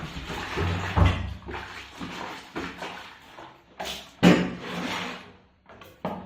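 Kitchen things being handled and put into a sink: two sharp knocks with clattering, among stretches of rough swishing noise.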